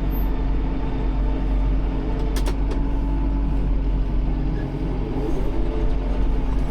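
Tractor engine running steadily, with a brief click about two and a half seconds in.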